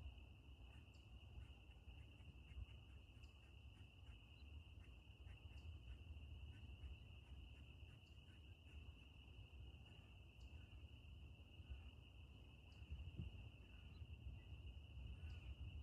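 Faint, continuous high-pitched trill of an insect chorus, most likely crickets, holding one steady pitch without a break, over a low rumble.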